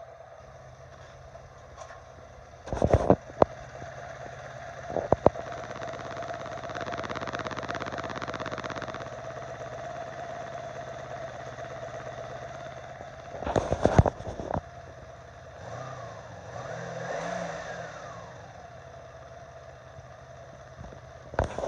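1982 Honda Magna 750's liquid-cooled V4 engine running with a ticking noise whose cause the owner is asking about. The engine rises in pitch and drops back once near the middle, and there are a few loud sharp knocks.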